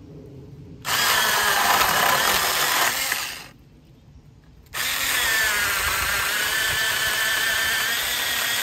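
Tingmengte 24V cordless mini chainsaw running in two bursts as it cuts through a small stick. The first burst starts about a second in and lasts about two and a half seconds. After a short pause the second starts about five seconds in and runs steadily on.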